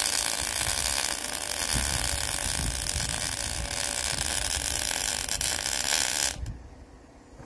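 Electric welding arc crackling and hissing steadily, cutting off suddenly about six seconds in when the arc is broken.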